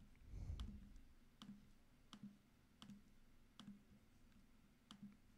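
Near silence with faint, evenly spaced clicks, about three every two seconds, and a soft low thump about half a second in.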